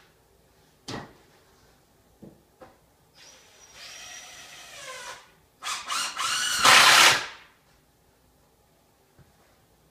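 Cordless drill running in two bursts of a couple of seconds each: the first falling in pitch, the second louder with its pitch rising. A sharp knock comes about a second in.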